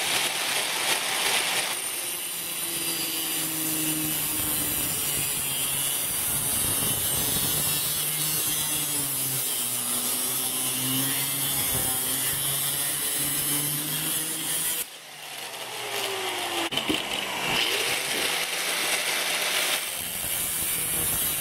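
Black & Decker angle grinder with a cutting disc slicing through a metal muffler tube: the motor's steady whine under a loud, hissing grind of disc on metal. About 15 seconds in the cut eases off briefly and the motor's pitch dips and rises before it bites into the metal again.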